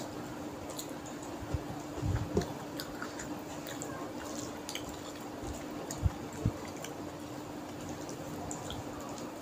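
Fingers squishing curry-soaked rice on a plate, along with chewing and small wet mouth clicks. A few soft thumps come about two seconds in and again about six seconds in. A steady low hum runs underneath.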